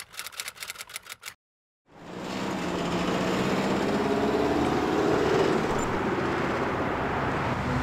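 A quick, even run of typewriter-style clicks, about seven a second, lasting a second and a half. A short silence follows, then street traffic fades in and holds: cars driving past with a steady engine hum.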